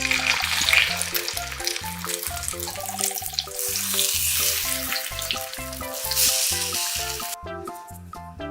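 Food sizzling and crackling in a hot frying pan, over a bouncy background music track. The sizzling cuts off suddenly near the end, leaving only the music.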